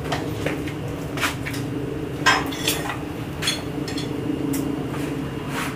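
Scattered metallic clinks and taps of tools and metal parts being handled, the sharpest about two seconds in, over a steady low machine hum.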